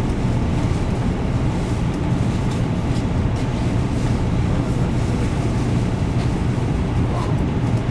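Steady low rumble of a Shinkansen bullet train, heard from inside the passenger car as it rolls alongside a station platform.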